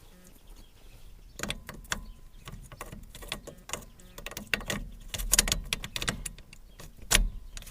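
Irregular clicks and rattles of steering-column lock parts being worked into place by hand, starting about a second in, with one sharper click near the end.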